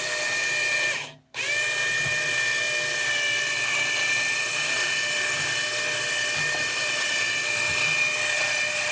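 A steady, high-pitched whine from a running electric motor. It cuts out almost completely for a moment about a second in, then comes straight back.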